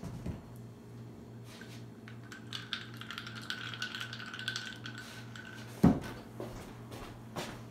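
Ice cubes clinking and rattling in a drinking glass of vodka and orange juice as it is shaken with a hand held over the top, then a single loud thump near the end.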